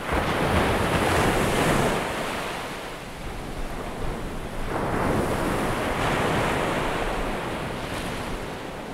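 Waves washing in: an even rushing water sound that swells and fades twice, the second swell starting about halfway through.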